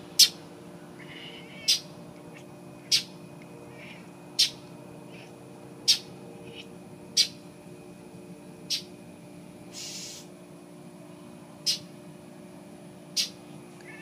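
Northern mockingbird giving harsh, short 'chack' alarm calls, one about every second and a half, nine in all, with a longer gap near the end.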